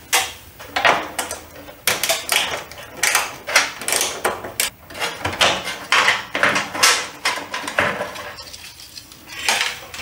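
Irregular metal clicking and rattling as the lamp holder assemblies are unclipped and pulled down from a fluorescent light fixture's sheet-metal housing, easing off briefly near the end.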